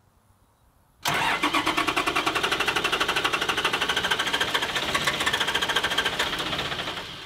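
Starter cranking the Allis-Chalmers 200's six-cylinder diesel engine, starting about a second in with a fast, even chugging that runs for about six seconds and then fades. The engine is hard to start: it turns over but does not catch.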